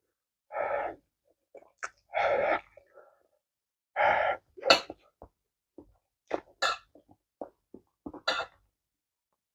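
A woman sneezing three times, about a second and a half apart, brought on by spicy food, her hand held at her mouth. Then a scatter of short mouth clicks and quick breaths.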